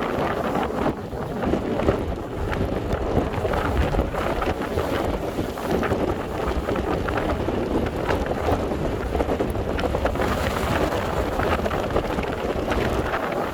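Strong sea wind buffeting the microphone with a heavy, continuous rumble, over waves surging and breaking against a harbour breakwater.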